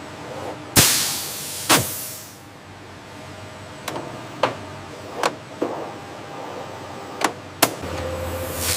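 A series of about eight sharp mechanical clanks and knocks at irregular intervals, the first two, about a second in, loudest and ringing briefly, over a low steady factory background.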